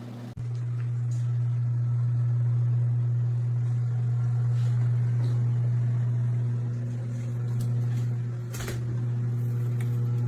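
Farberware portable countertop dishwasher running with a steady low motor hum, with one sharp knock about eight and a half seconds in.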